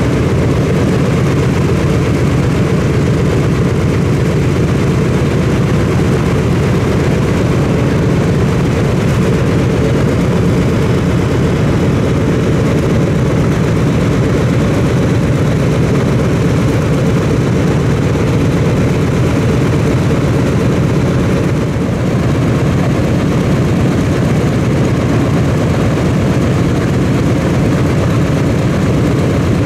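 A Boeing B-17G Flying Fortress's four Wright R-1820 Cyclone radial engines running steadily on the ground, a loud, even, low drone.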